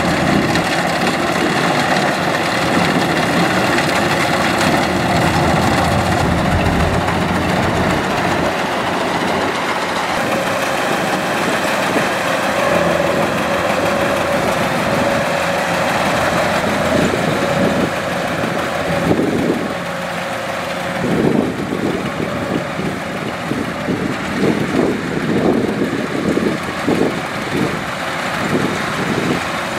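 Kubota DC-105X combine harvester's diesel engine and threshing machinery running steadily under load while it harvests rice. Irregular low buffeting breaks into the sound in the last third.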